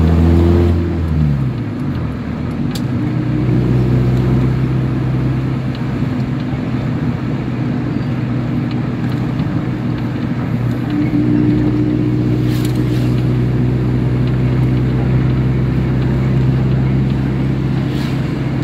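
Car engine and road noise heard from inside the cabin of a moving car. The engine note falls about a second in, then runs steady. Two brief clicks come through.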